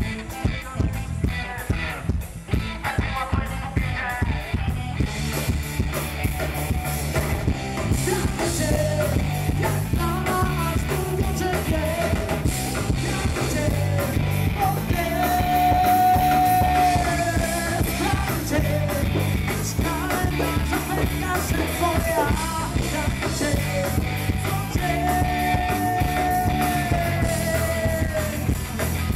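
Live rock band playing: hard drum-kit hits at the start, then the full band with electric guitars, drums and keyboard, carrying a melody with long held notes.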